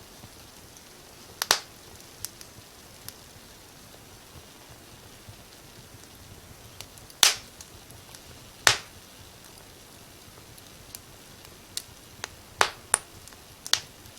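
Fire in a fireplace crackling: sharp, irregular pops every second or few, the loudest two near the middle, over a faint steady hiss.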